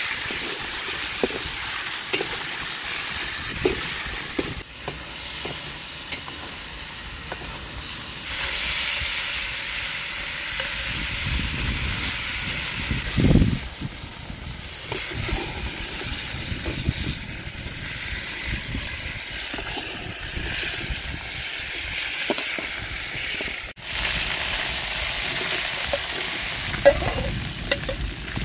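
Lamb meatballs sizzling as they fry in oil in a steel pan over a wood fire, with a metal ladle clicking and scraping against the pan as they are stirred and scooped out. There is one louder knock about halfway through.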